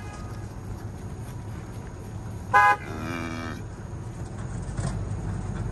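Pickup truck horn giving one short toot about two and a half seconds in, honked to warn off a bull pressing close to the truck, over the low steady running of the truck's engine.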